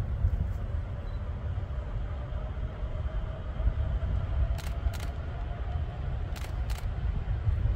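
Electric locomotive approaching along the track at a distance: a faint whine that rises slightly in pitch, two pairs of sharp clicks about halfway through and again near the end, all under a heavy steady low rumble.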